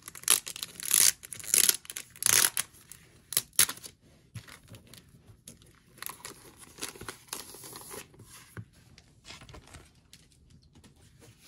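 Clear plastic wrapping being torn and peeled off a glossy printed booklet. It comes as loud crackling tears in the first few seconds, then softer crinkling that fades to light rustling.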